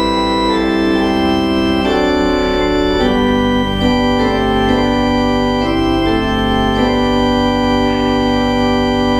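Church organ playing slow, sustained chords that change about once a second, with a held bass note coming in about three seconds in: the postlude after the dismissal.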